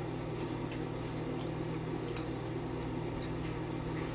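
Faint wet mouth clicks of someone chewing food, over a steady low hum.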